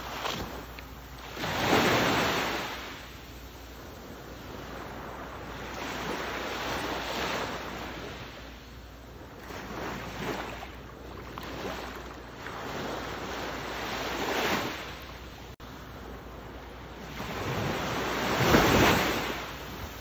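Ocean surf: waves breaking and washing in surges that rise and fall every few seconds, the largest about two seconds in and another near the end.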